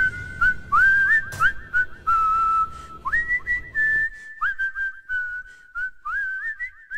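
Whistled melody of short notes, many scooping up into pitch, over the end of a rap track's beat. The beat drops out about four seconds in, leaving the whistling alone.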